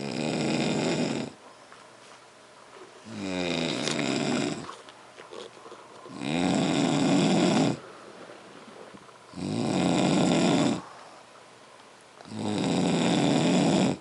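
Loud snoring: five long snores, each about a second and a half, coming roughly every three seconds with quiet gaps between, the second one starting with a rising tone.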